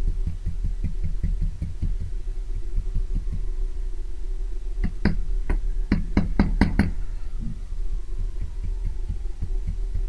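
Paintbrush dabbing paint onto card, a quick run of soft taps several times a second, with a cluster of sharper clicks about five to seven seconds in as the brush works paint on a plastic palette. A steady low hum runs underneath.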